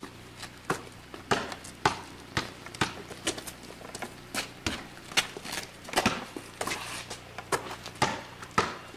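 A basketball bouncing repeatedly on an asphalt driveway, sharp thuds about twice a second with a few uneven gaps.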